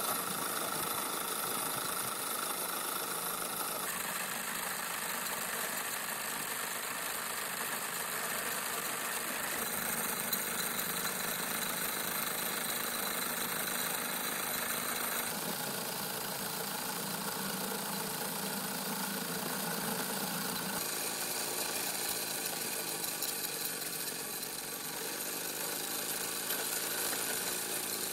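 Wilesco D14 model steam engine running steadily, a continuous hiss of steam mixed with the noise of the running mechanism. The sound shifts abruptly a few times.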